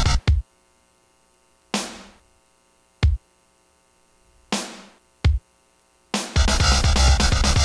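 A programmed rock loop of drum-machine beat and distorted FL Slayer guitar plays and stops abruptly just after the start. Four separate short hits follow in the gap, two of them noisy and fading and two of them low thumps, before the loop starts again about six seconds in.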